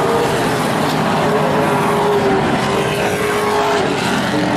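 A pack of vintage modified race cars running at speed around a paved oval track, their engines loud and steady.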